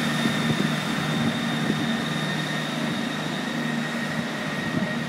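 Two coupled Class 158 diesel multiple units departing, their underfloor diesel engines giving a steady drone as they pull away.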